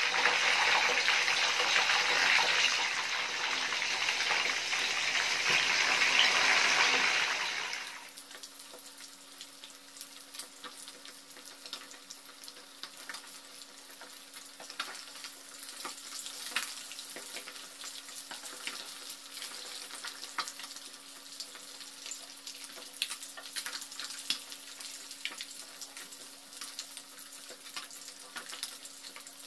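Whole mullet deep-frying in hot oil in a wok: loud, dense sizzling for the first eight seconds or so, then dropping off sharply to a quieter, steady sizzle with scattered pops and crackles as the fish fry toward crisp.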